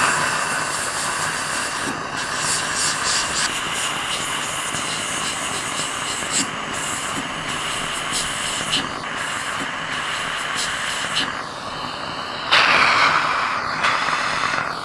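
Dental air-polishing handpiece spraying amino-acid powder in a jet of water and air, a steady hiss, with a suction tip drawing off the spray. The hiss swells louder for about a second near the end.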